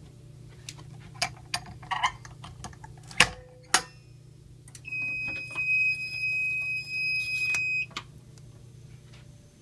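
Electronic fire alarm beeper sounding one steady high-pitched tone for about three seconds, after a few sharp clicks and knocks.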